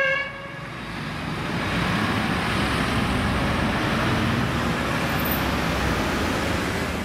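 A fire engine's two-tone siren cuts off just after the start. City road traffic follows: vehicle engines running and a steady road noise that swells over the first couple of seconds.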